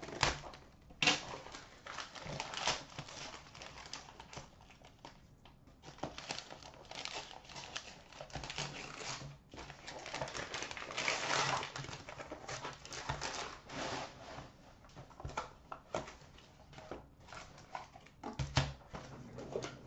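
Shiny gold wrapping paper being torn off a box by hand and crumpled, in an uneven run of crinkling and ripping with short pauses.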